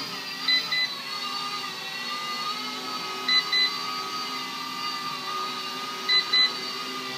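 RC Era A61 mini Airwolf helicopter's small electric motors and rotors whining steadily in flight. A pair of short beeps sounds about every three seconds, three times, which fits a low-battery warning.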